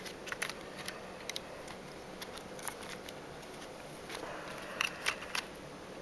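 Scattered light clicks and taps from a solid-state drive in its plastic-and-rubber caddy being handled and slid into a laptop's plastic drive bay.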